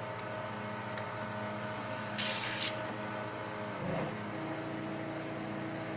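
Generator engine running steadily under the washing machine's load, chugging about four seconds in before settling into a slightly different tone. A short hiss a little after two seconds in.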